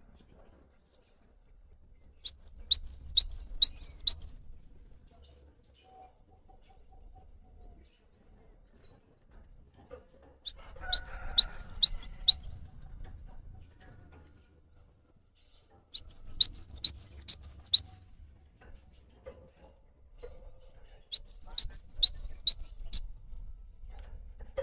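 Cinereous tit (gelatik batu) singing loudly in four bouts of sharp, high, repeated notes, each note dropping in pitch. There are about three notes a second, and each bout lasts about two seconds, with pauses of several seconds between bouts.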